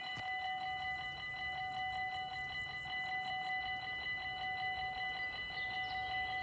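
Dutch level-crossing warning bell ringing in a fast, steady, even rhythm while the barriers are down and the red lights flash, signalling that a train is approaching.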